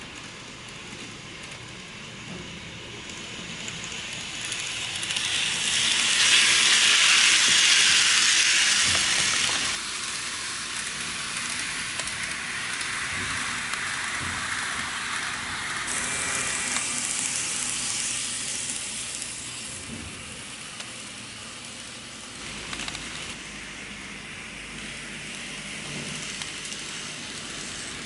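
N-gauge model train running on KATO Unitrack: a steady hiss of small wheels and motor on the track. It swells as the train passes close by, about five to ten seconds in, drops away suddenly, then swells more gently a few seconds later.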